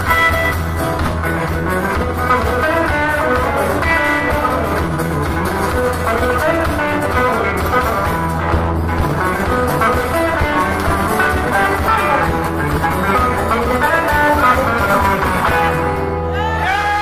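Live band playing a fast Irish reel on acoustic and electric guitars over a steady bass line. Near the end the tune stops and the audience starts cheering.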